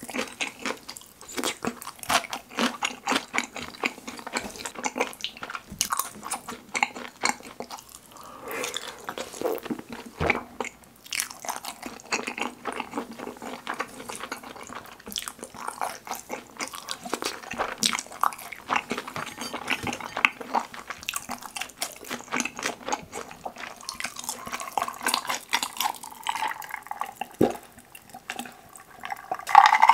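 Close-up chewing of saucy kimchi-pizza sweet-and-sour pork: wet, sticky mouth sounds with many small clicks and crunches. Near the end there is a louder stretch of drinking from a glass with ice.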